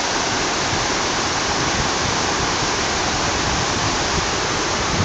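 Water pouring over a concrete weir into white water below: a steady, even rushing.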